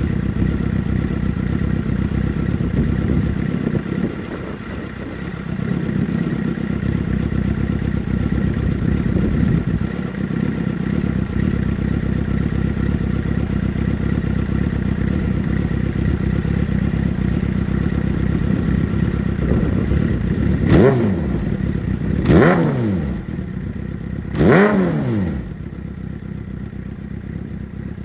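Suzuki GSX-R600 inline-four engine running through an aftermarket exhaust. It runs steadily, then is blipped three times in quick succession, each rev rising and falling sharply in pitch, and settles to a quieter idle.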